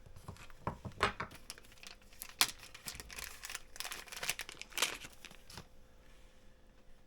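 Small parts being handled at a workbench: a reel-seat ring and cork grip halves clicking and rustling in an irregular run of sharp clicks and crinkly scrapes, which stops about five and a half seconds in.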